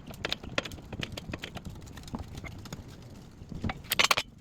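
Irregular sharp clicks and knocks from a DIY press brake forcing a 3D printed punch down on 12 gauge steel flat bar in a V-block, with a louder quick cluster of clicks near the end.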